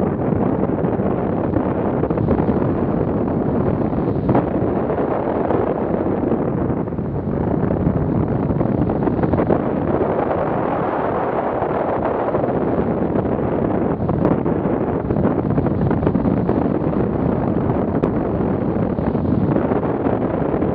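Steady wind rush from the airflow past a hang glider in flight, buffeting the glider-mounted camera's microphone.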